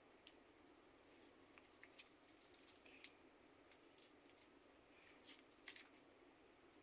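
Carving knife slicing thin shavings from a small limewood blank: faint, irregular crisp cuts and scrapes, the sharpest about two seconds in and twice more around five to six seconds in.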